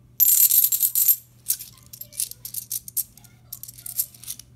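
A stack of Kennedy half dollars clinking together in the hand. There is a quick run of jingling for about a second with a thin high ring, then separate clicks as coins are slid off the stack one at a time.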